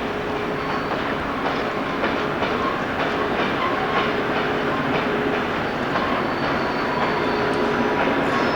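Freight train running past at speed, wheels clicking over rail joints in a steady rhythm under a continuous rumble of wagons on the track.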